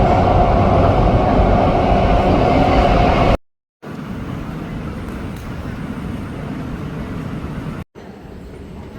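MRT metro train running: loud steady rumble with a held whine, cut off about three seconds in, then quieter steady running noise, broken by another short cut near the end.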